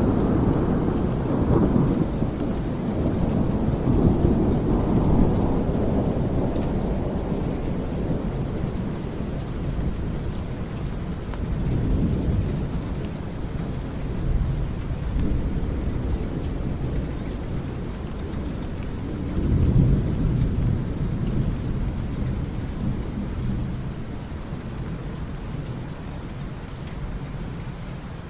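Steady rain with low rolling thunder that swells and fades several times. The thunder is loudest in the first few seconds and again about twenty seconds in, and the storm eases slightly near the end.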